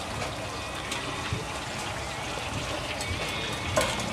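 Stir-fry of vegetables and pork skin sizzling in a large wok, with a metal spatula scraping and clanking against the pan now and then; the loudest clank comes near the end.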